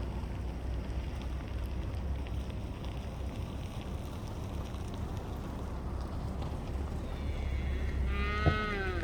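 A drawn-out animal call, swelling over the last two seconds with a bending pitch, over a steady low outdoor rumble. A single sharp click sounds just before the call ends.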